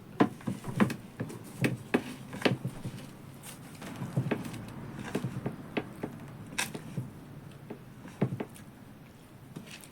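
Singju, a cabbage salad with chili and roasted gram flour, being mixed in a bowl: irregular squishing and sharp clicks, sometimes several in a second.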